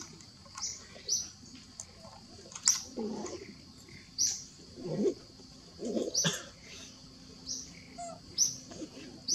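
Repeated short, high bird chirps, each sweeping down in pitch, about one a second, with a few brief lower sounds in between.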